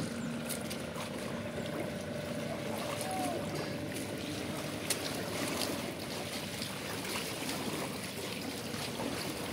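Water lapping and rippling on open backwater, a steady wash of sound. A faint steady engine-like hum fades out in the first couple of seconds.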